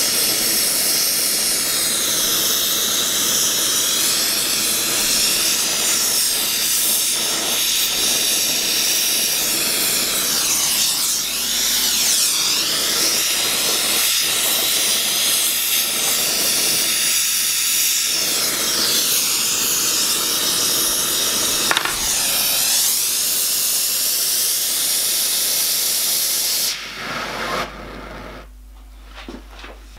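Gas torch flame hissing steadily as it heats a steel rod clamped in a vise to cherry red for bending. The hiss cuts out near the end as the flame is shut down.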